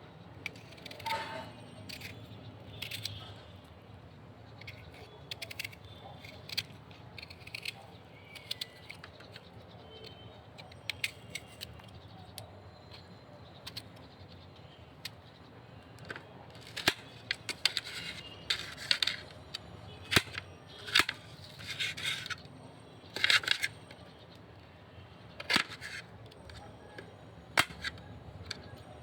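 Irregular sharp clicks and knocks over a low steady background, sparse at first, then louder and more frequent from about halfway through.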